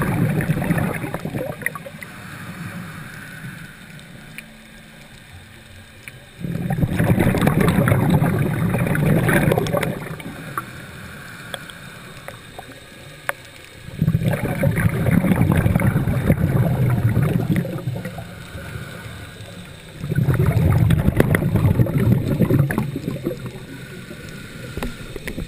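Scuba diver breathing through a regulator underwater. Long bubbling exhalations come about every six to seven seconds, with a quieter inhalation in between.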